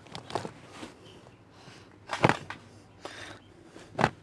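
A few sharp knocks from things being handled, the loudest about two seconds in and another near the end.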